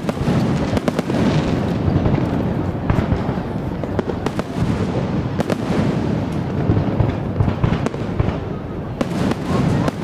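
Aerial fireworks shells bursting in rapid, overlapping bangs and crackles, one on top of the next with no pause.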